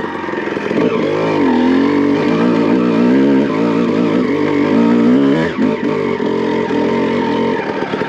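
2001 Honda CR250R's 250 cc single-cylinder two-stroke engine revving under way, its pitch rising and falling with the throttle; about five and a half seconds in it dips briefly and then runs at a steadier, lower pitch.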